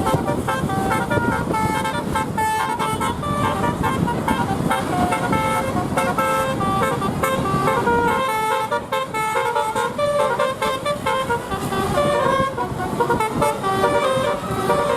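Indonesian bus 'telolet basuri' musical horn, sounded through roof-mounted horn trumpets, playing a tune as a fast run of short, stepping notes over steady background noise.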